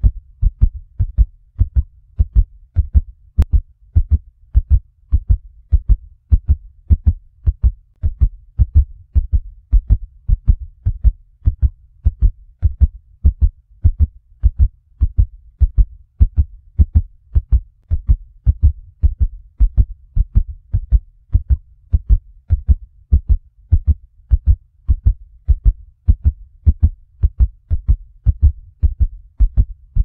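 Heartbeat sound effect: a steady, even rhythm of deep lub-dub thumps.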